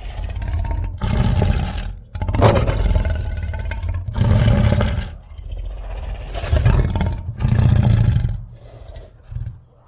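Sound-effect roars of a fictional 'tapiraphant' creature: a run of about six rough roars, each about a second long with short breaks between them, trailing off quieter near the end.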